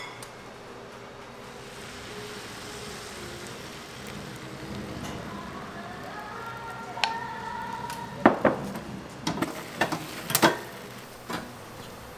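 Steady sizzling hiss of food cooking on a hot surface, with several sharp clinks and knocks of kitchen utensils in the second half.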